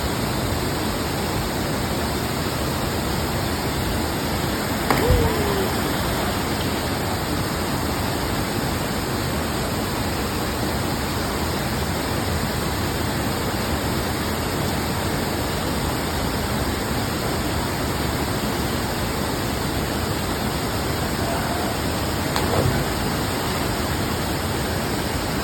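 Rushing water, a steady even rush that does not change, with a brief faint sound about five seconds in and another near the end.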